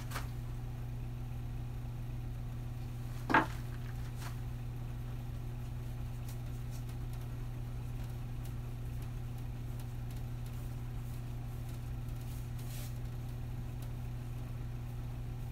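A steady low hum, with one sharp click about three and a half seconds in and a few faint ticks later.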